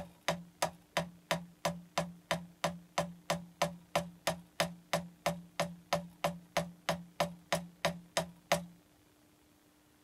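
Wooden drumstick bouncing on a practice pad, played with only two fingers in the flying-fingers finger technique. An even stream of about three strokes a second, stopping about 8.5 seconds in.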